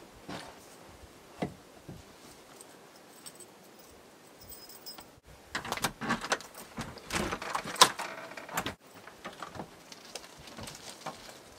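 Keys jangling and a key scraping and clicking in a door lock as it is worked open, a clatter of small metallic clicks lasting about three seconds in the middle, loudest near its end.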